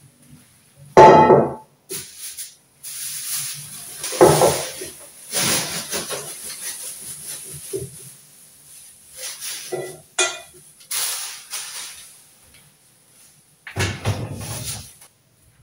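Clear plastic bag rustling and crinkling in irregular bursts as green grapes are handled and tipped into a bowl, with a sharp loud handling knock about a second in.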